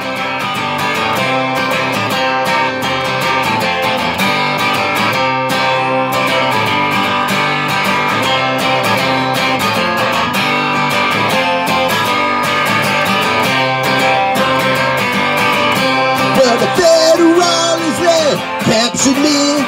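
Acoustic guitar strummed steadily through an instrumental break. A man's singing voice comes back in over it near the end.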